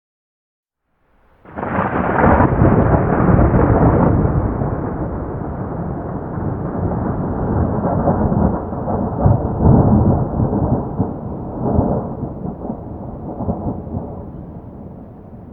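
A thunder clap sound effect: it cracks in suddenly about a second and a half in, then rolls on as a long low rumble with several swells, fading slowly.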